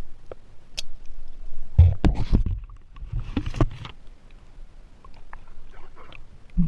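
Shallow stream water sloshing and splashing around a camera held at and just under the surface, with a few muffled knocks and clicks. The sloshing comes in irregular surges, loudest about two seconds in and again a little later.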